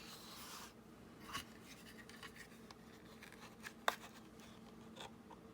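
Paper rustling as a sheet is handled and lined up, then a few light clicks and taps from paper and a hand tool, the sharpest about four seconds in.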